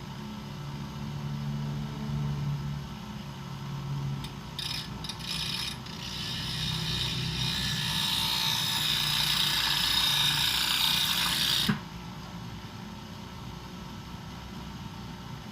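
Bench grinder running with a thickness planer blade held against the wheel: a steady motor hum, then a grinding hiss that grows louder for several seconds and stops abruptly about three quarters of the way through as the blade comes off the wheel.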